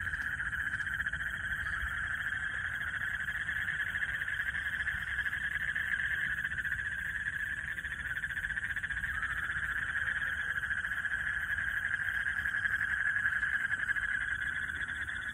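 Chorus of many frogs calling together in a dense, steady trill, with faint regular high-pitched ticking above it.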